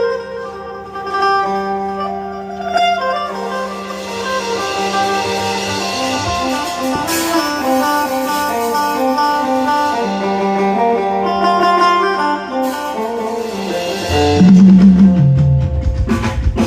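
Instrumental music led by plucked guitar, the notes changing steadily, with a louder run of low notes stepping down near the end.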